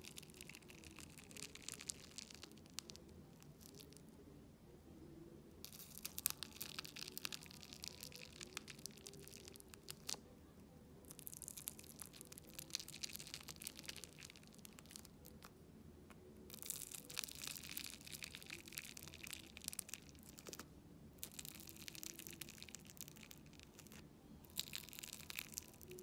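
Soft air-dry clay being dug into and torn apart with a small plastic fork-like tool in a plastic tub: fine crisp crackling and tearing. It comes in about six stretches of a few seconds each, with short pauses between.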